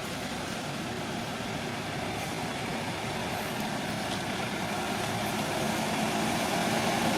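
A motor vehicle's engine running steadily and growing gradually louder.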